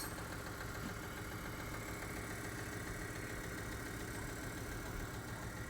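1946 Singer sewing machine running steadily on its own, a constant even hum, being run in to work fresh lubrication through its mechanism after years unused.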